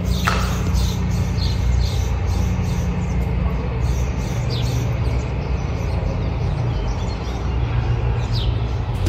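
Birds chirping, short high downward chirps about once every second or less, over a steady low hum.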